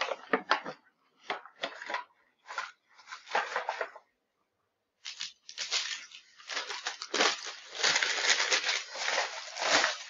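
Paper wrappers from a sterile dressing-change tray rustling and crinkling as gloved hands gather and crumple them. Short separate rustles at first, a pause of about a second, then continuous crumpling.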